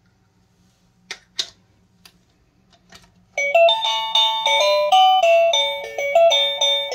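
Plug-in doorbell chime receiver clicking into a wall socket, twice, then starting to play an electronic doorbell melody of short ringing notes about three seconds later.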